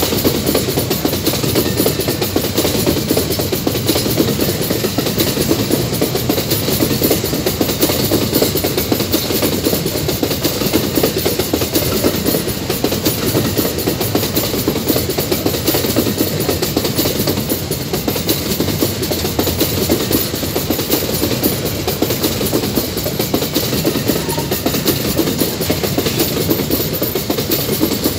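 Empty steel ore gondola wagons of a long freight train rolling past close by: a steady rumble and clatter of steel wheels on the rails.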